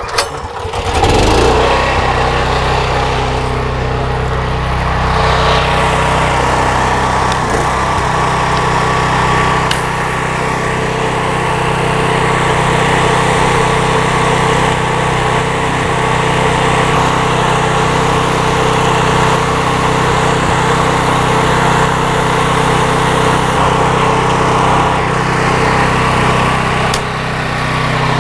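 15-horsepower PowerEase engine of a gas belt-drive pressure washer starting up in the first second or so, then running steadily at a constant speed. The level dips briefly near the end.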